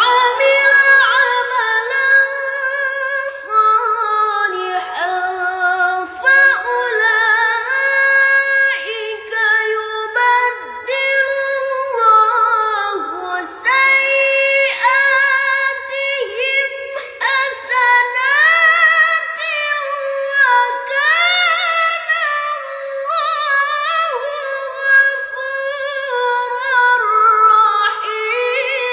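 Female Quran reciter (qoriah) chanting in melodic tilawah style: one high voice with ornate, wavering melismas, drawn out in long phrases on a single breath.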